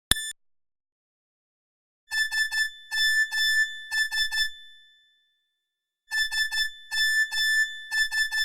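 Nokia 3128 ringtone played as a MIDI file: a short synthesized phrase of quick, bright notes in clusters of three that ring out, played twice about four seconds apart. A sharp click comes just after the start.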